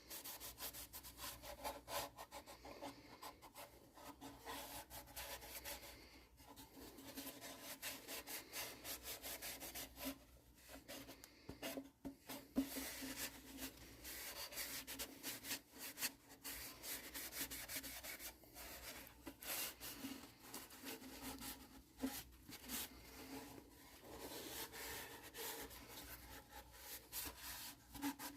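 Paper towel wet with denatured alcohol wiping over a plywood ukulele body: faint, uneven rubbing strokes with an occasional light knock.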